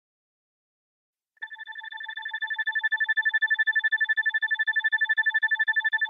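Isochronic tone: a high electronic tone pulsing on and off about nine times a second. It fades in after about a second and a half of silence and cuts off abruptly at the end.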